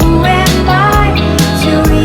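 Background music: a song with a steady beat and a melodic line gliding up and down in pitch.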